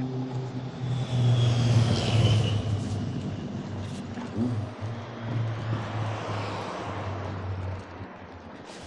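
Road traffic: a car passing on the street, loudest about one to three seconds in, then a steadier, lower engine hum that drops away near the end.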